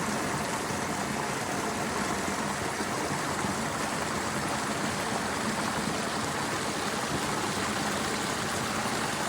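Running water flowing with a steady, even rush that does not change.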